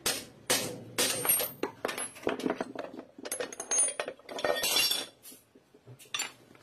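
Metal tools and motorcycle engine parts clinking and knocking against each other in a quick run of sharp strikes, several with a short high ring. The strikes thin out to a few light clicks about five seconds in.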